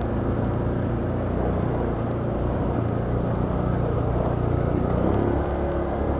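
Can-Am Outlander ATV engine running steadily while riding along a trail.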